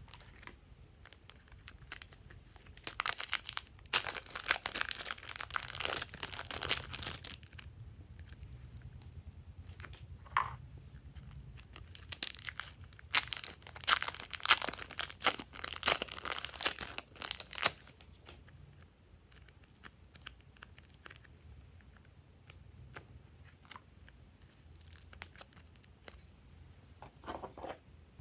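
Thin plastic zip bag crinkling as it is squeezed and handled to push slime out. The crackle comes in two long bouts, a few seconds in and again about twelve seconds in, with quieter rustling between and after.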